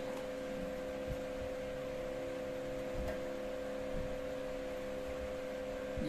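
Steady electrical hum with one strong high tone, plus a few faint clicks from wire handling.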